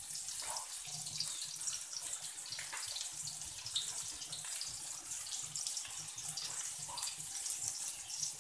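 Sliced red onions sizzling in hot oil in a steel wok: a steady crackling hiss.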